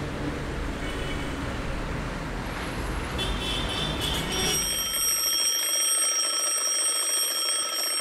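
A low rumbling noise that gives way, about halfway through, to an alarm clock ringing with a steady high tone, a sound effect that opens a song about waking up.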